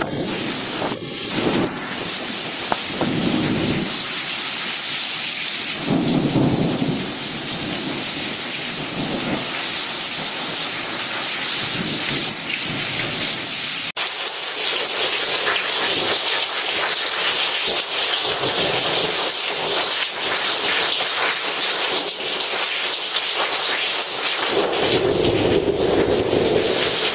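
Heavy rain pouring steadily, with low thunder rumbling several times in the first half and again near the end.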